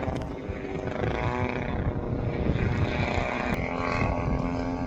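Engine and propeller of a radio-controlled SBACH 342 aerobatic model plane running with a steady note.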